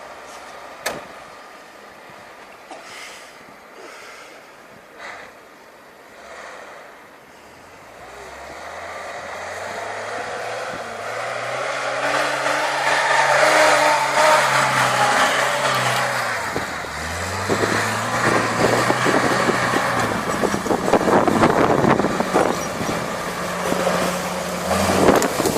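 A motor vehicle's engine pulling away and speeding up, its pitch rising, dropping at a gear change about two-thirds of the way in, then rising again as it grows louder.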